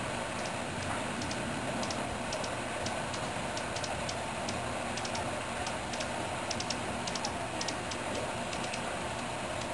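Thin, high-pitched ticking chips of hummingbirds, coming in irregular quick clusters of a few notes, over a steady background hiss.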